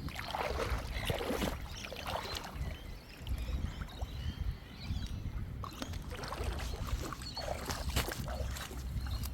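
Outdoor water scene: a steady low rumble like wind on the microphone, with splashing and faint voices now and then.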